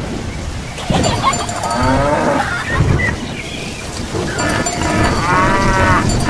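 Steady rain falling, with a farm animal calling twice over it: once about a second in and again near the end.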